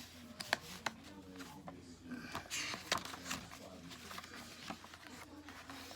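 Paper pages and inserts of a handmade junk journal being turned and handled: rustling with several sharp clicks and taps.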